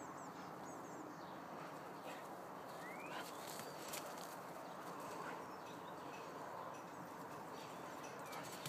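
Outdoor garden ambience: a steady background hiss with faint bird chirps and one short rising whistle about three seconds in, and a few soft clicks.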